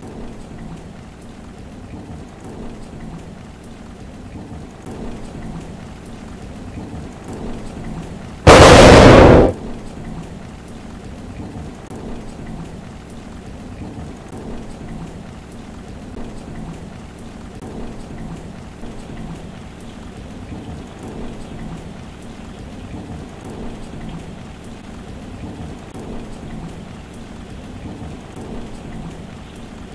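Steady rain, with a single very loud pistol shot about eight and a half seconds in that lasts about a second and cuts off.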